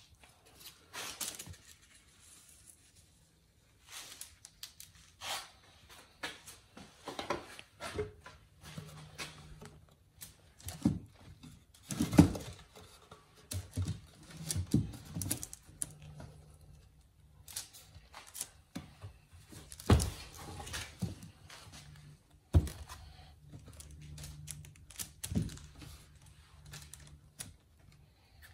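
Pine boards and a wood-glue bottle handled on a wooden workbench: scattered clicks, taps and knocks, with a couple of louder thunks as the boards are set down and pressed together.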